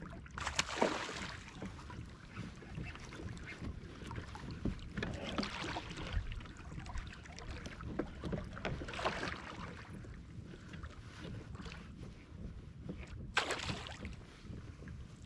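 Water lapping against a fishing kayak's hull, with wind on the microphone and a low steady rumble. A few brief louder rushes of noise come through, the sharpest near the end.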